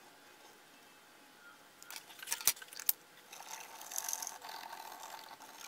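A few sharp clicks, then a cotton swab scrubbing scratchily over the bare solder pads of a circuit board, cleaning them after the old solder was wicked off.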